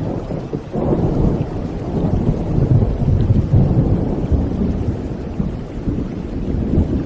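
Rolling thunder over steady rain: a deep rumble builds about a second in, is loudest a couple of seconds later, then slowly eases.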